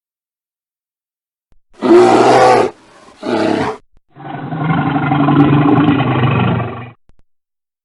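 A large wild animal calling: two short rough calls, then a longer one lasting nearly three seconds.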